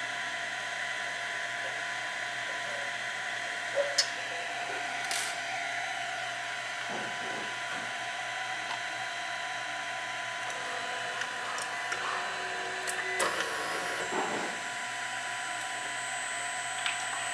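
Printrbot Play desktop 3D printer running: a steady whir and whine from its cooling fan and stepper motors, with a few short clicks and knocks scattered through.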